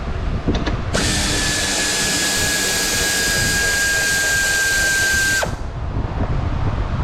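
Power tool, such as a drill or driver, running steadily for about four and a half seconds with a high steady whine and hiss, starting about a second in and cutting off suddenly.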